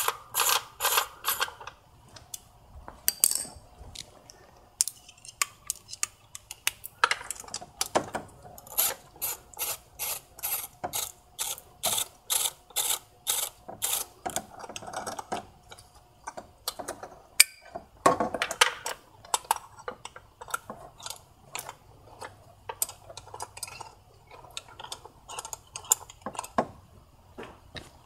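Hand ratchet clicking as it works a long extension, backing out the intake manifold bolts: runs of rapid ratchet clicks with a few short pauses between the strokes.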